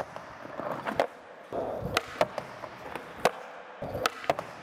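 Skateboard grinding along a ledge and rolling on a concrete floor, with several sharp clacks of the board striking.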